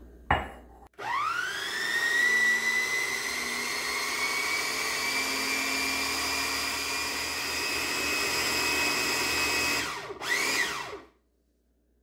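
Countertop blender motor starting about a second in, its whine rising quickly to a steady pitch as it blends eggs, margarine, sugar and milk into a liquid cake batter. A brief knock comes just before it starts. Near the end the motor stops, gives one short burst that rises and falls in pitch, and winds down.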